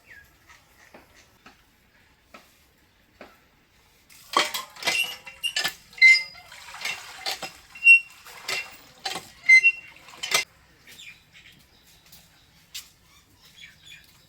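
Metal pots and utensils clattering and clinking for about six seconds, starting about four seconds in. Some strikes ring briefly.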